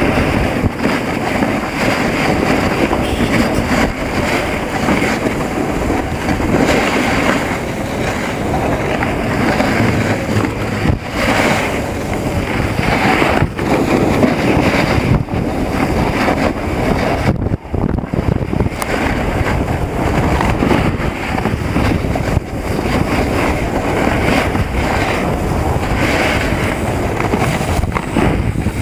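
Wind rushing over the microphone, mixed with a snowboard scraping and sliding over packed snow during a run: a loud, steady rush with a short dip about two-thirds of the way through.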